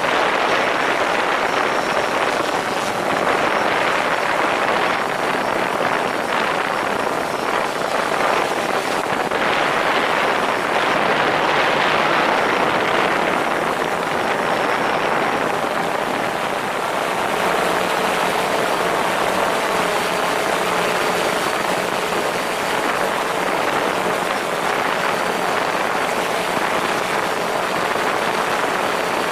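DJI Phantom 4 quadcopter's propellers running in steady hover flight, picked up from just beneath the drone: a dense, even rushing noise with a faint hum that grows clearer about halfway through.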